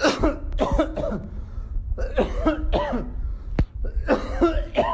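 A man coughing repeatedly: short, sharp coughs in three bunches about two seconds apart.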